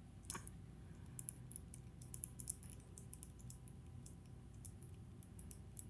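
Faint, scattered light clicks of a wide-blade screwdriver working in the slot of an Islander mooching reel's retaining screw as it is tightened down.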